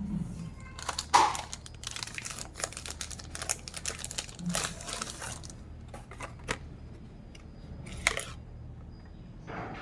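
Crinkling and rustling handling noise, like a wrapper or thin plastic, in dense irregular bursts for the first five seconds or so, then only a few scattered crackles.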